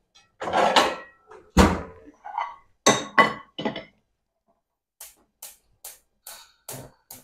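Frying pans clattering and set down on a gas cooker, with one heavy thunk, then a gas burner's igniter clicking about twice a second near the end.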